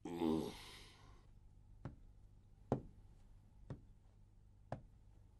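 A man's breathy, voiced 'ahh' after a drink, then footsteps in hard-soled shoes on a hard floor, one step about every second.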